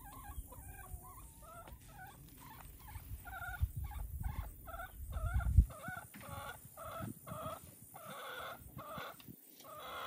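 Hens clucking: one call repeated in a steady series, about three notes a second. A low rumble under the first half ends in a single thump about halfway through.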